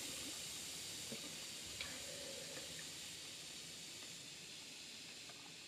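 Bath bomb fizzing as it dissolves in bath water: a faint, steady hiss that slowly fades, with a couple of tiny ticks in the first two seconds.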